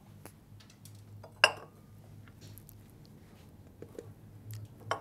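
Clinks and taps of a plastic tub and a spatula against a stainless-steel mixing bowl as psyllium is scraped into it, with one sharp, louder clink about a second and a half in and a few light taps near the end.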